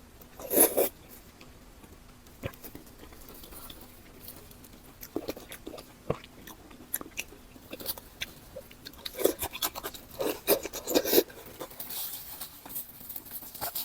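A person biting and chewing food close to the microphone: scattered wet mouth clicks, with a few louder bites near the start, about five seconds in, and a cluster between nine and eleven seconds.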